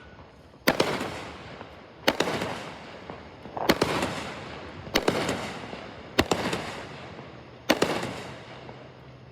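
Fireworks going off: six loud bangs about a second and a half apart, each trailing off over about a second.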